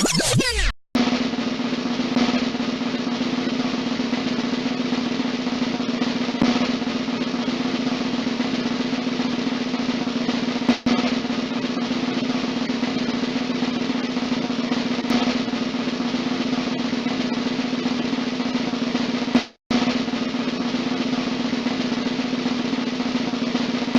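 Background music with drums, continuous and steady, broken by two brief cuts: once about a second in and again near 20 seconds.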